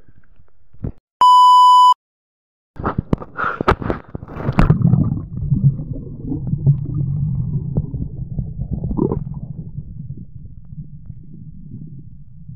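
A short, loud electronic beep about a second in. After a brief silence come a run of sharp knocks and splashing, then a steady, muffled low rumble, the sound of a camera recording underwater.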